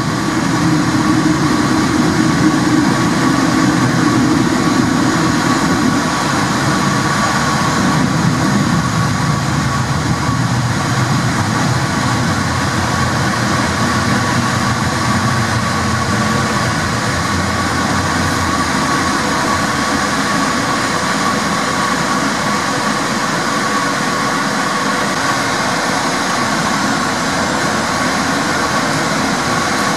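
Porto Metro light-rail tram running through a tunnel, heard from inside the cab: a steady rumble of wheels on rail with a constant whine, and a low hum that slowly falls in pitch over the first half as the tram slows for a station.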